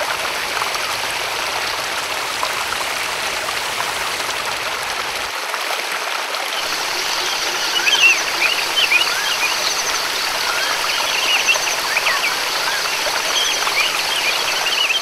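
Waterfall and stream water rushing and splashing in a steady even wash. From about halfway through, short high chirps of birds sound over the water.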